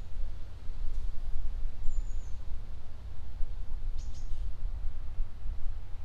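Brief high-pitched songbird chirps in a beech forest, one falling chirp about two seconds in and a short pair near four seconds, over a steady low rumble. No woodpecker drumming is heard.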